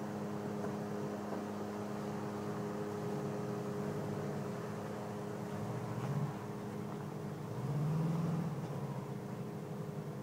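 Volkswagen Vanagon Syncro Westfalia engine running at low revs while crawling over rocks, with two brief rises in revs about six and eight seconds in.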